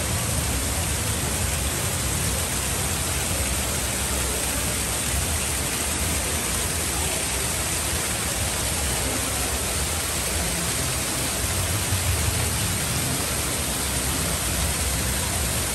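Man-made rock waterfall pouring down a rock face and splashing into a pool: a steady, even rushing hiss.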